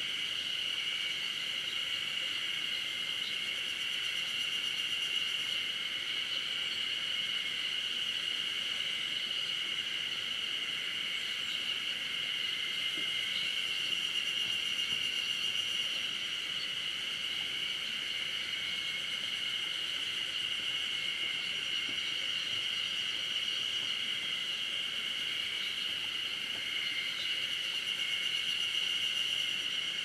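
A steady, high-pitched insect chorus: several thin tones held together without a break.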